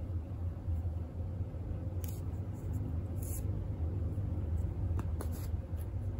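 Steady low hum in the background with light rustling of yarn being handled. About five seconds in come two sharp clicks from a pair of scissors as they close in to snip the brown yarn.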